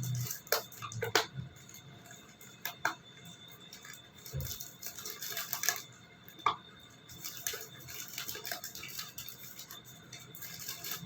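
Cutlery clicking and clinking against a plate during eating: scattered short sharp clicks, the loudest about a second in, with a few more around three, six and six and a half seconds in.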